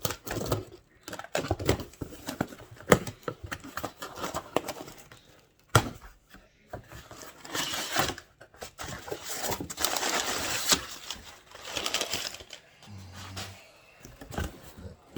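Cardboard boxes being unpacked and handled: a series of sharp knocks and taps as boxes are picked up and set down, with longer stretches of rustling and tearing through the middle.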